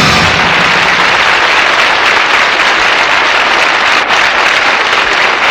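Concert audience applauding as a song ends, the band's last chord cutting off right at the start.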